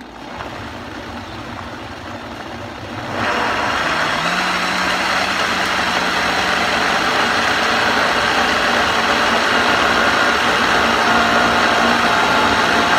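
Vitamix blender motor running, pureeing chunks of roasted sweet potato and carrot with coconut milk and water into soup. It starts at a lower speed and steps up to a louder, higher speed about three seconds in, then runs steadily with a constant hum that rises slightly in pitch a second later.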